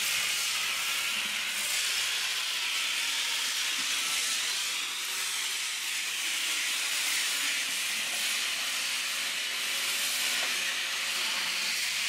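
Electric disc sander with a dust-extraction hose running steadily against a fibreglass boat hull, sanding off old antifouling paint: an even, high hiss and whir.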